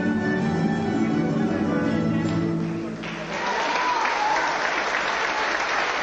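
Croatian folk dance music plays and stops about halfway through, and an audience breaks into loud applause that carries on.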